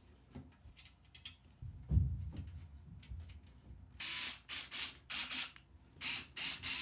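Screws being driven into the radiator to hold it in the case, in short rasping bursts from about four seconds in, after a dull thump about two seconds in as the radiator is set in place.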